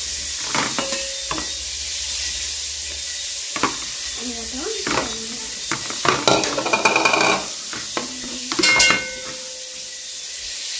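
Plates and cutlery clattering as food is served, thickest about six to seven seconds in, over a steady sizzling hiss.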